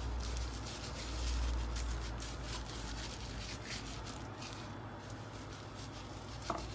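A plastic-gloved hand rubbing seasoning into the skin of raw whole baby chickens, a continuous soft rustling and rubbing, with one short click near the end.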